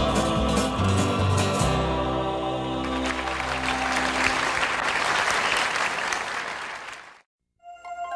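A band ends a country ballad on a held final chord, then a studio audience applauds, the clapping fading out about seven seconds in. After a brief silence, a few ringing, bell-like mallet notes begin near the end.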